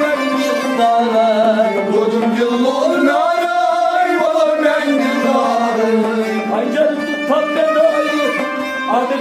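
Harmonium-accompanied Kashmiri Sufi singing: a man's voice glides through a melismatic melody over the harmonium's held notes.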